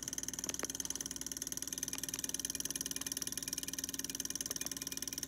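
Home-built reed-switch pulse motor (a magnetically suspended toothpick rotor) running fast on 9 volts: the reed switch chatters in rapid, even clicks as it pulses the coil, with a steady hum under it and a few sharper ticks.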